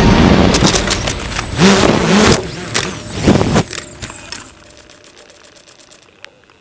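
A quadcopter's brushless motors and propellers whine and change pitch as it flies into tree branches, with sharp knocks and clatter as it hits the branches and tumbles into the grass in a crash. The motors cut out about four seconds in.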